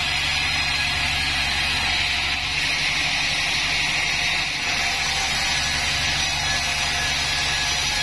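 Pandan Taiwan band sawmill running steadily, its blade cutting a plank of sengon wood: a constant hiss over a low motor hum.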